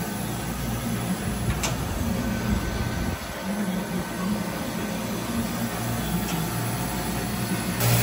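Industrial water chiller running: a steady low hum of its refrigeration compressor and condenser fan, with one light click about one and a half seconds in.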